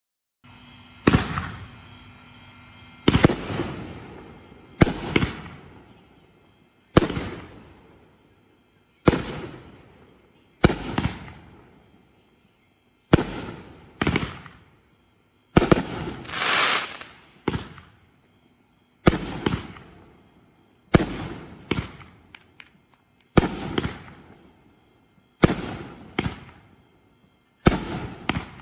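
Pyro Diablo 'Wild Hawg' 33-shot 500-gram fireworks cake firing: a loud boom roughly every one to two seconds, some shots coming in quick pairs, each trailing off over about a second.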